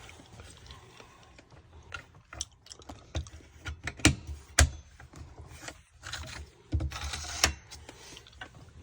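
Scattered clicks, knocks and scraping of small metal window-latch parts being handled while a new latch is fitted to a bus window. Two sharper clicks come about four seconds in, and a scraping stretch comes near the end.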